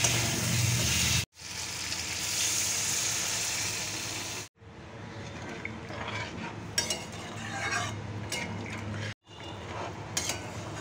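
Pointed gourd, potato and tomato pieces sizzling in hot oil in a steel kadhai, stirred with a metal spatula. After a sudden cut a few seconds in, the sizzle is quieter, as the pan now holds a watery gravy, with the spatula scraping and clicking against the steel.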